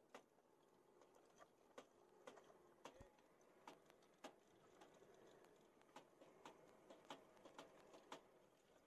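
Faint, irregular sharp clicks and knocks, about one or two a second, with a single low thud about three seconds in.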